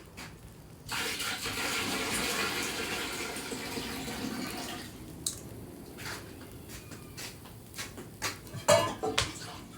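Kitchen tap running water for about four seconds, starting about a second in, followed by scattered clinks and knocks of dishes and utensils.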